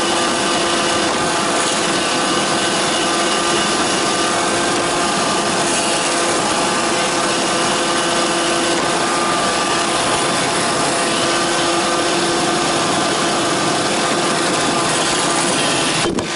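Roomba 531 robot vacuum running close up: a steady whir of motor and brushes with a whine of several steady tones. The noise briefly drops out near the end.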